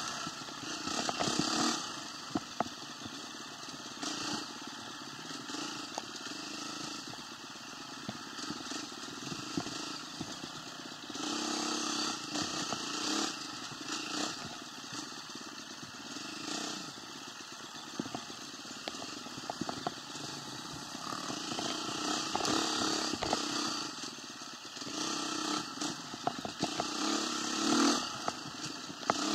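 A motor vehicle's engine running, growing louder in several swells as the throttle opens, with scattered clicks and crackle.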